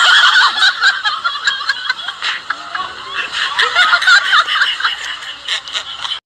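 Men laughing in short snickers and chuckles over background music.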